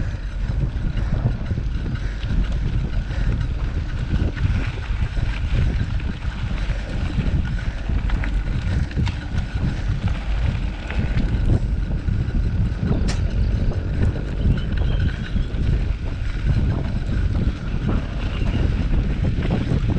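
Wind buffeting the microphone: a continuous, uneven low rumble with a faint steady high tone, and one sharp click about thirteen seconds in.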